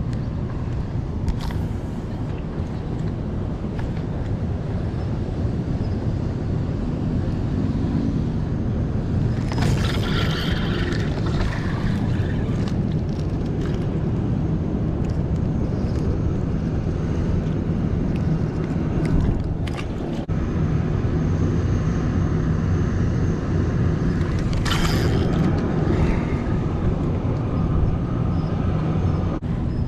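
Boat motor running steadily with a low hum, with two brief hissing bursts, about ten seconds in and again near twenty-five seconds.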